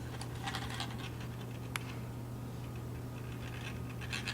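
Faint scratching and light handling noises, with one sharp click about two seconds in, over a steady low hum.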